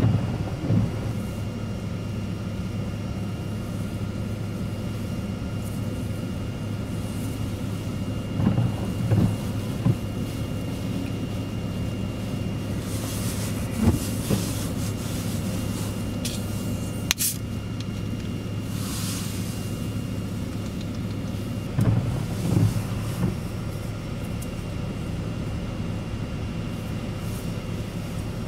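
Steady low hum inside a vehicle with its engine running. A few clusters of low thumps and brief hissing gusts of wind-driven rain against the windshield come through it.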